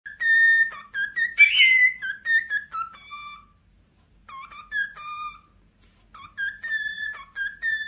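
Cockatiel whistling its song: a run of clear whistled notes, some held steady and some sliding up or down, breaking off twice in the middle before starting again.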